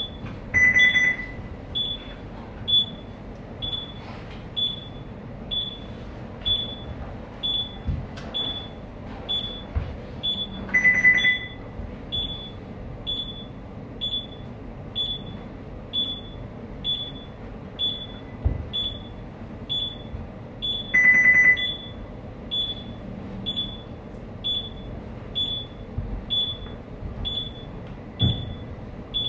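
Electronic alarm on a ship's bridge simulator console: short high beeps about once a second, with a lower, longer and louder tone sounding every ten seconds or so.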